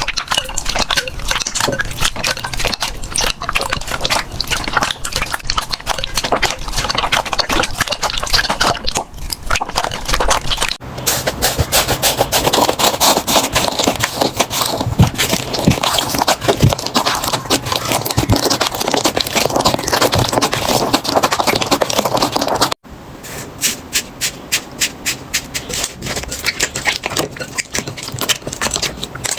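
Slime being squeezed, pressed and poked by hand, making a dense run of small wet clicks, pops and crackles. The sound cuts abruptly twice, changing character as one slime clip gives way to another.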